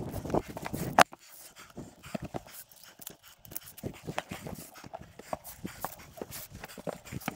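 Irregular clicks and knocks of a climber moving over rock: boots and metal climbing gear striking stone, with one loud sharp click about a second in.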